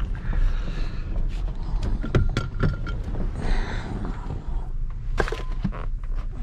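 Truck cabin noise while crawling down a rough, rocky dirt road: a steady low rumble with many sharp knocks and rattles as the truck jolts over rocks.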